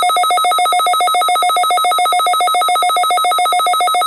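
Weather radio alert tone for a weekly test: a loud, steady electronic tone pulsing rapidly.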